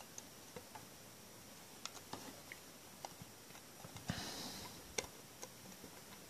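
Faint, scattered small clicks and taps of a Samsung Galaxy S3's plastic frame and display being handled as fingers pry them apart, with a short scraping rustle about four seconds in.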